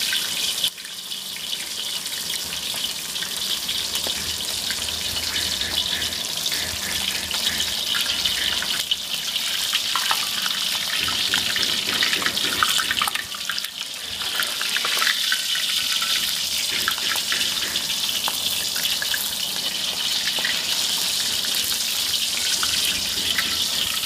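Butterflied sea fish deep-frying in hot oil in a metal wok: a steady sizzle, with a few light clicks and scrapes of a metal spatula against the wok.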